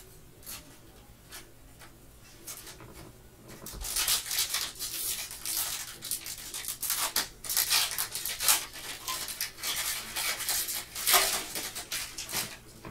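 Panini Illusions trading-card pack wrapper crinkling and crackling as it is ripped open. It comes in many irregular crackles that start about four seconds in and run until near the end, after a few light clicks of cards being handled.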